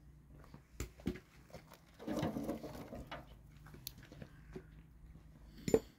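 Split firewood and dry sticks set down into a rusty sheet-metal barbecue grill: a couple of knocks about a second in, a second or so of rustling and scraping about two seconds in, and one sharp knock near the end, the loudest.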